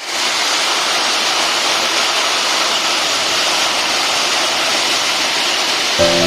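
Hail storm: hailstones coming down hard in a dense, steady rush of noise. Music comes in just before the end.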